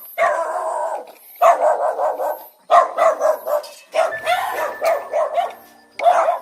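A dog barking in several runs of quick barks, with short pauses between the runs.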